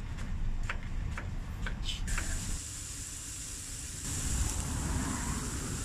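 Outdoor street-stand ambience: a steady low rumble of traffic with a few light clicks, then from about two seconds in a steady high sizzling hiss.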